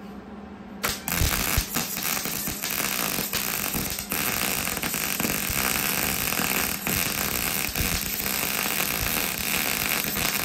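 Electric arc welding on galvanized steel Unistrut channel. The arc strikes about a second in and crackles and sputters for roughly ten seconds, then stops near the end. The welder says the galvanized coating keeps the weld from burning in well.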